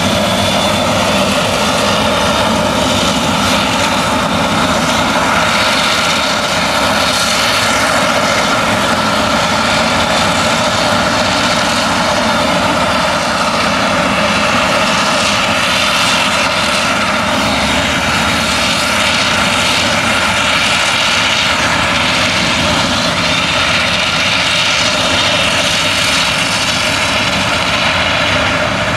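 Claas Jaguar 970 forage harvester chopping maize: its MAN V8 engine and chopper running steadily under load, loud with a steady whine, mixed with the tractor running alongside.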